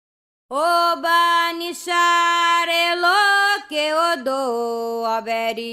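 A Candomblé cantiga for Xangô begins after a brief silence: one voice singing unaccompanied, holding long notes that step down in pitch.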